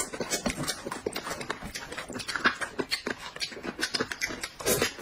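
Eating noises: wet chewing and lip smacking as noodles and corn on the cob are eaten, in quick irregular clicks.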